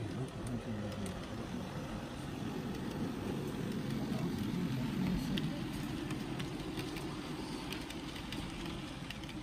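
HO scale model freight train running past on the layout: a steady low rumble of the locomotive and rolling cars on the track that grows louder around the middle as the engine passes, with a few faint clicks.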